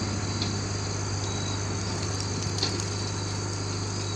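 Vehicle engine idling steadily, a constant low hum, with faint insect chirring above it.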